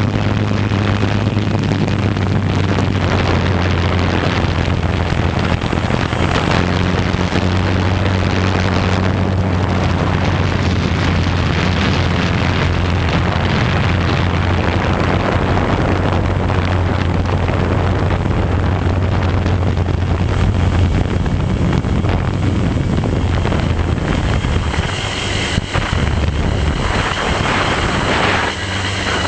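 Multirotor drone's electric motors and propellers running in flight: a loud, steady hum. Near the end the low hum drops away and a higher whine comes in.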